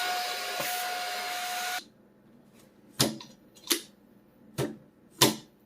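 Brigii handheld mini vacuum cleaner running with a steady whine through its suction-cup attachment, drawing air out of a plastic bag, then switching off suddenly about two seconds in. Four sharp separate clicks follow over the next few seconds.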